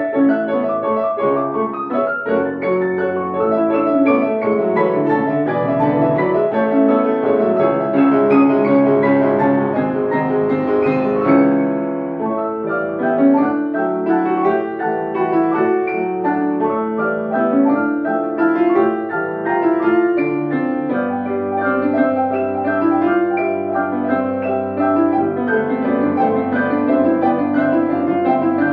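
Grand piano played continuously, a piece with many overlapping notes and chords; about three quarters of the way through, a low bass note sounds and is held under the rest.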